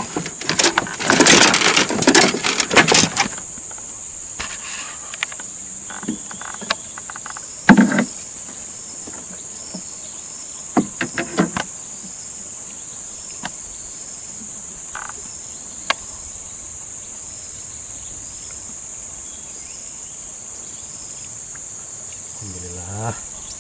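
Insects drone steadily at a high pitch throughout. In the first three seconds there is loud rustling and knocking from a landing net holding a freshly caught giant snakehead on the wooden boat's floor. A single loud knock comes about eight seconds in, and a few light clicks follow around eleven seconds.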